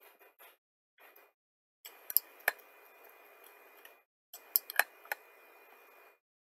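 Computer mouse clicking: a few sharp clicks in two small groups, about two seconds in and again near five seconds, over a faint hiss.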